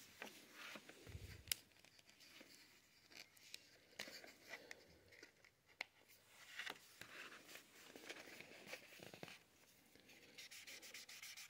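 Faint handling of a marker, its card packaging and coloring-book pages, with scattered small clicks. Near the end, the tip of a mess-free Imagine Ink marker starts rubbing on the paper in quick little strokes.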